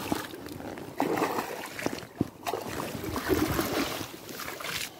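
A hooked pike thrashing in shallow water at the bank, with irregular splashes as it is brought to the landing net.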